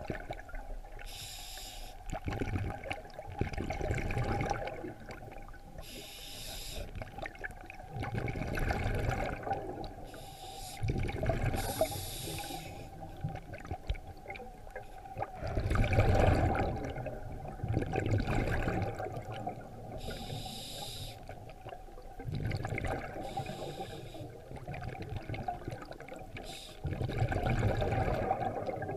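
A scuba diver breathing through a regulator underwater: a short hiss of each inhalation followed by a longer rumbling burst of exhaled bubbles, repeating about every five seconds.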